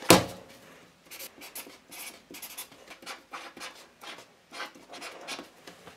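A sharp tap as a paper card is laid down on a wooden tabletop, then a marker pen writing on the card in short, quick scratchy strokes.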